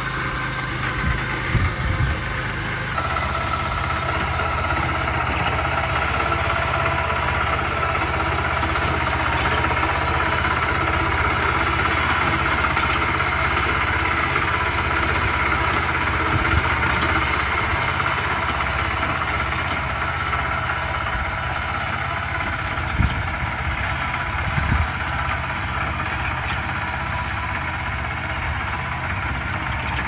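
BCS 622 reaper-binder's engine running steadily as the machine cuts wheat, with a few short sharp knocks about a second in and again late on.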